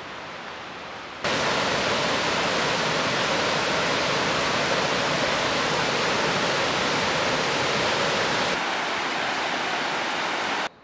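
Rushing water of a mountain stream and small waterfall cascading over rocks, a steady loud rush. It starts abruptly about a second in, eases slightly near the end, then cuts off.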